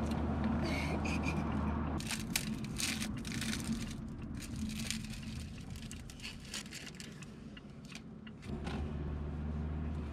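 Gift wrapping on a Merci chocolate box crinkling and tearing as it is unwrapped, a dense run of crackles strongest a few seconds in, over the low drone of car road noise.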